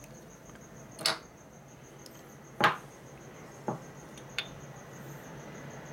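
Motorcycle brake caliper parts clinking and knocking as the caliper halves are handled: four short knocks, the loudest about two and a half seconds in.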